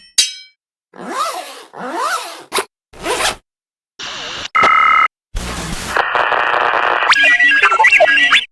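A quick run of short, unrelated synthesized sound effects from the SFX2 sound-effects plugin, one after another: a brief ringing hit, two scraping swishes that rise and fall in pitch, a few short hits, a loud two-tone beep, a noise burst with a low thud, then a steady buzz and a warbling electronic tone near the end.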